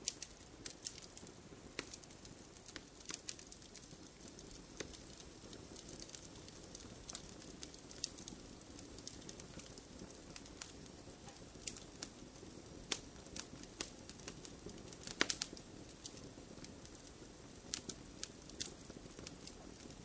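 Wood fire burning in a fireplace: irregular sharp crackles and pops over a soft steady rush of the flames, with a quick cluster of louder pops about fifteen seconds in.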